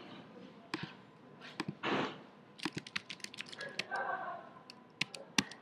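Typing on a computer keyboard: a quick run of keystrokes about halfway through, with single key clicks scattered before and after. A short breathy rush of noise comes about two seconds in.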